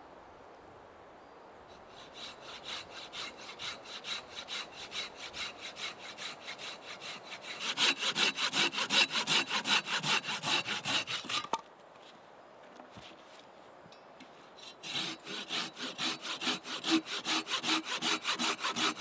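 Hand saw cutting through a log in quick back-and-forth strokes. It starts softly a couple of seconds in and grows louder, breaks off for about three seconds midway, then carries on.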